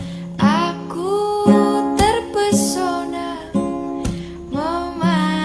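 Acoustic guitar music, with plucked and strummed notes struck about every second or two and left to ring.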